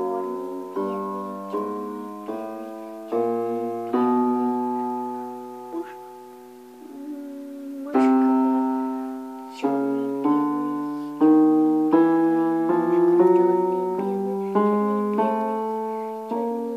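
Yamaha electronic keyboard with a piano sound, playing a child's slow, simple melody one note at a time in the low-middle range. Each note strikes and fades, and two notes about 4 and 8 seconds in are held longer.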